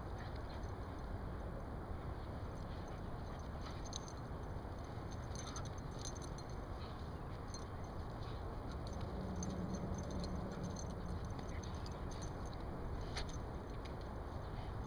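Two dogs play-fighting, collar tags jingling in scattered faint clicks over a steady low rumble, with a short low hum about nine seconds in.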